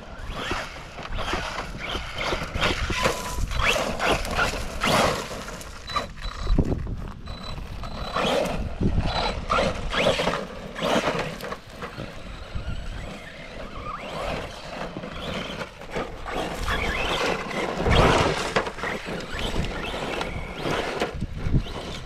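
Arrma Big Rock 3S RC truck's brushless drive running in uneven bursts of throttle over rough ground, with wind buffeting the microphone.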